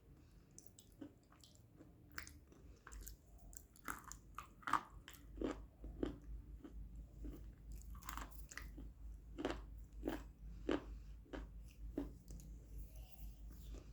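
A crumbly white cube crunching as it is crushed: a run of sharp, irregular crunches, sparse at first and louder and closer together from about three seconds in.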